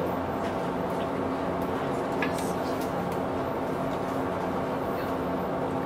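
Express passenger boat's engines running with a steady, even hum, with a few faint clicks and a brief high chirp about two seconds in.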